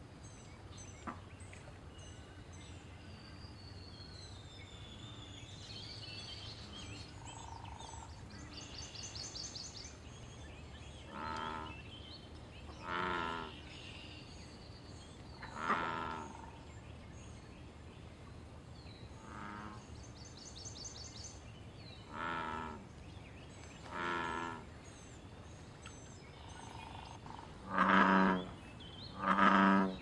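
Male American bullfrogs calling: a series of deep, pulsing bellows about a second each, first heard about eleven seconds in and repeated every few seconds, the last two near the end the loudest. Thin high chirps and trills of small birds run throughout.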